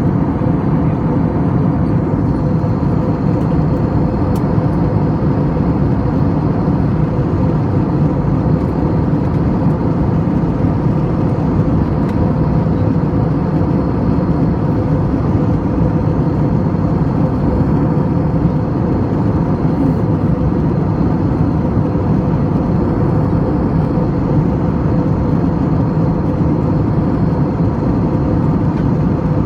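Airbus A321 cabin noise in flight: the steady, even rush of airflow and jet engines heard inside the cabin, deep and unchanging, with a few faint steady tones running through it.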